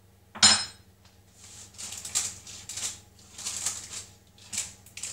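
Kitchen handling noises: a sharp tap about half a second in, then a run of short crinkling rustles, roughly two a second, as a spoon and the baking paper lining a frying pan are handled while barbecue sauce goes onto a pizza.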